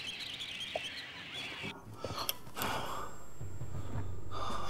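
Faint outdoor ambience with small birds chirping, which cuts off under two seconds in. A low steady drone then builds with a few clicks, the start of background music.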